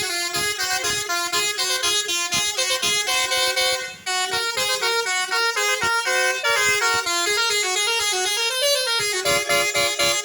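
Bus's basuri 'telolet' multi-tone musical horn playing a quick tune of short stepped notes. There is a brief break about four seconds in, and a sliding up-and-down run near the end.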